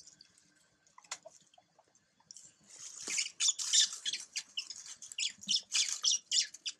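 Baby macaque squealing in a rapid string of short, high-pitched cries, starting about two and a half seconds in. These are distress cries from a hurt baby being held down while its wound is cleaned.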